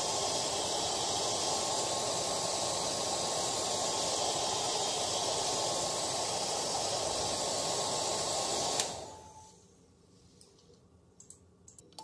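Handheld hair dryer blowing steadily, a rush of air with a thin whine, then switched off about nine seconds in, its airflow dying away over a second. A few faint clicks follow near the end.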